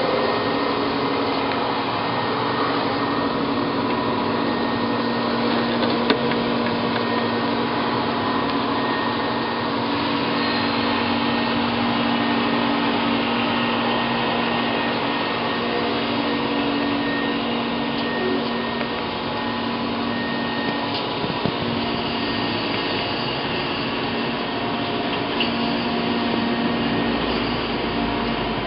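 Chevalier FSG-1632 CNC surface grinder running with its grinding wheel spinning at 1750 RPM: a steady machine hum and whine.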